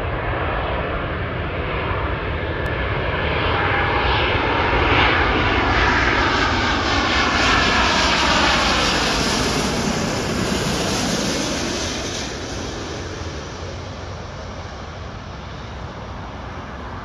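Boeing 777-200ER's twin turbofan engines as it passes low overhead on final approach. The roar swells to its loudest about five to eight seconds in, its whining tones slide down in pitch as it goes by, then it fades.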